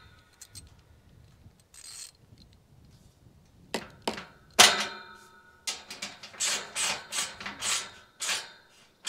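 Metal clinks and knocks with a ringing tone, the loudest about halfway through, then a quick run of about seven clinks: a metal tool turning the screw-in top hinge pin of a steel tube farm gate into its wooden post, knocking against the gate and hinge.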